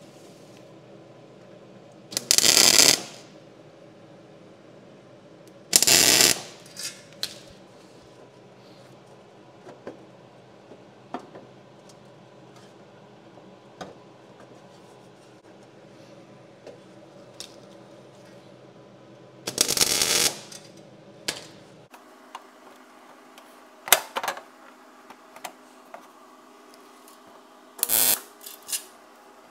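MIG welder tack-welding a steel patch panel onto a car chassis frame rail: about five short bursts of crackling arc, each under a second, spaced several seconds apart.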